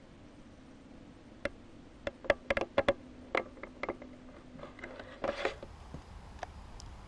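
Irregular sharp clicks and knocks, about a dozen close together over a couple of seconds, then a brief scuffing noise.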